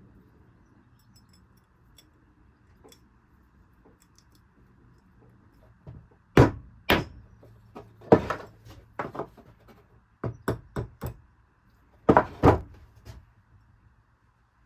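About a dozen sharp knocks in uneven clusters, starting about six seconds in, after a quiet stretch.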